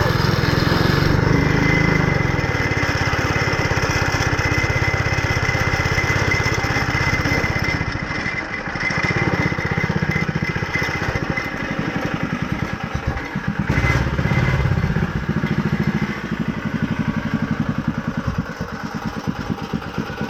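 Go-kart's small engine running, its speed rising and falling, with a dip about eight seconds in.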